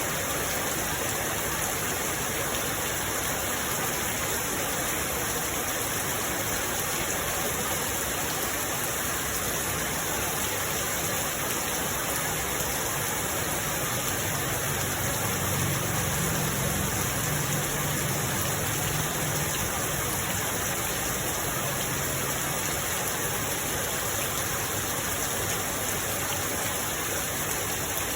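Steady rain falling in an even hiss, with a low rumble that swells and fades away in the middle.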